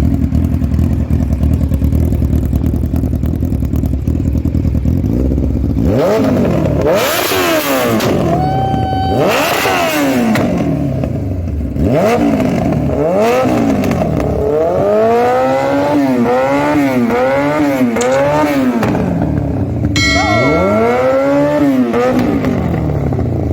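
Yamaha R1 inline-four engine through an SC-Project exhaust, idling for about six seconds and then revved repeatedly. Single revs rise and fall, a quick run of short blips comes in the middle, and pops and crackles come from the exhaust as the revs drop.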